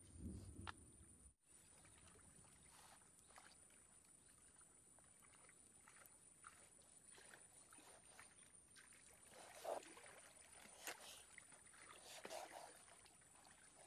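Near silence, broken by faint, scattered knocks and scrapes of a cleaver slicing raw pork belly on a coconut-shell block, with a few louder knocks about ten and twelve seconds in.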